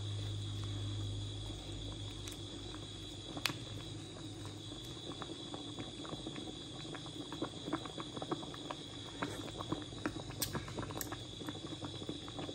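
A pot of soup bubbling on the boil, its bubbles popping in many small irregular clicks that grow busier toward the end. A steady high cricket trill runs behind it, and a low hum fades out about a second and a half in.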